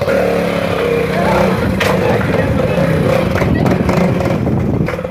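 Motorcycle engine revving, its pitch rising over the first second or so, then running rough and steady at higher revs.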